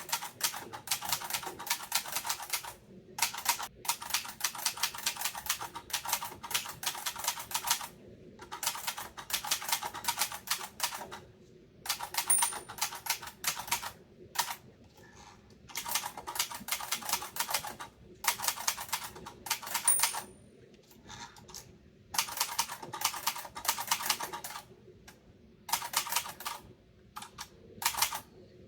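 Typewriter being typed on: runs of rapid key strikes broken every few seconds by short pauses, with two brief high pings.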